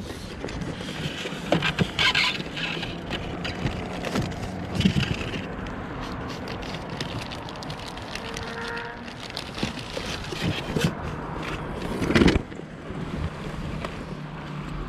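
Fishing gear being handled: plastic zipper bags rustling inside a plastic cooler, with scattered clicks and knocks of lids and boxes and one loud knock about twelve seconds in. A steady low hum runs underneath.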